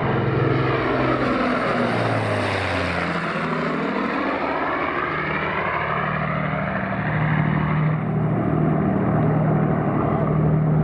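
The four Rolls-Royce Merlin V12 engines of an Avro Lancaster B1 bomber flying past overhead. The engine drone drops in pitch as the aircraft passes, about two to three seconds in, then carries on at a steady lower pitch as it climbs away.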